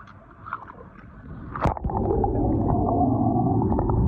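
Water sloshing and gurgling, with a few faint clicks at first and then a loud churning that starts sharply about a second and a half in.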